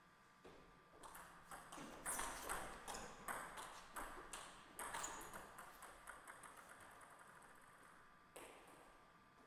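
Celluloid-style table tennis ball clicking off rackets and the table in a fast rally, about two or three hits a second for some four seconds. After that come fainter ticks that trail off, and there is one more sharp click near the end.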